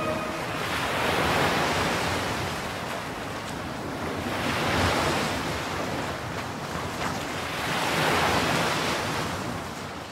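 Ocean surf breaking on a beach, the wash swelling and ebbing three times as waves come in, then fading out at the very end.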